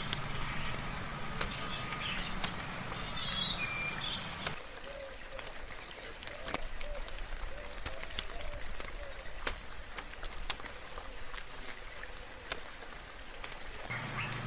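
Rain with scattered sharp drips and birds chirping in short high calls. A low background hum drops out about a third of the way in.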